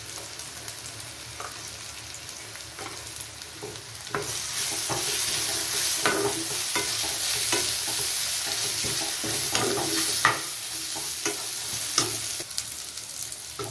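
Sliced onions and coriander powder frying in hot oil in a non-stick kadai, sizzling, while a steel spatula stirs and scrapes them, clicking and knocking against the pan. The sizzle gets louder about four seconds in as the stirring turns the onions over.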